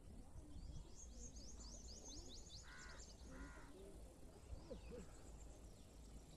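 Faint bird calls over a low outdoor rumble: a quick run of high, down-slurred chirps for about two seconds, then two short lower calls about half a second apart.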